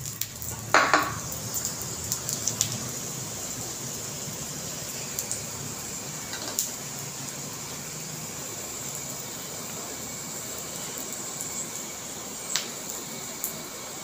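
Oil sizzling steadily under a paratha frying on a hot tawa. A metal spoon clinks against the pan about a second in, followed by a few lighter clicks, and there is a brief sharp tick near the end.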